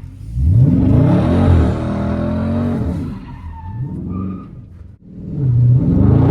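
Dodge Charger Scat Pack's 392 HEMI V8 revving hard, its pitch climbing from the start. It eases off about three seconds in, dips briefly just before the five-second mark, then revs up again.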